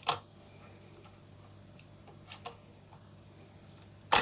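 Sharp mechanical clicks from a 1959 Nikon F film camera being worked while 35mm film is loaded. One comes right at the start, a quick pair about two and a half seconds in, and the loudest near the end, with a smaller click just after it.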